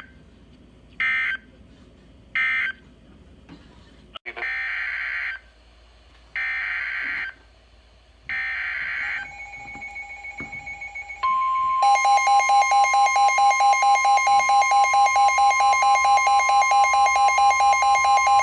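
NOAA Weather Radio alert signalling: three short bursts of screeching SAME digital data (the end-of-message code), then three longer SAME header bursts announcing the next alert, then the steady warning alarm tone. A pulsing electronic alert beep, about four pulses a second, comes in just after the tone starts and sounds along with it.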